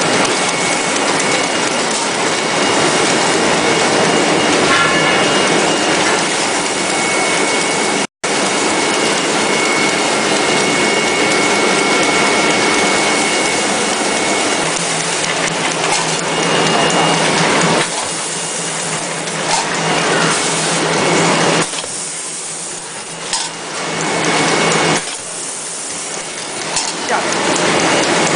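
Steady mechanical noise of a facial tissue folding machine and its production line running, with a faint steady whine on top. The noise cuts out for an instant about eight seconds in, and gets lower and more uneven in the last third.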